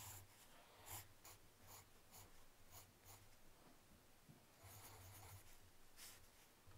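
Faint scratching of a graphite pencil on sketchbook paper: a string of short strokes about half a second apart, then a denser run of strokes around five seconds in.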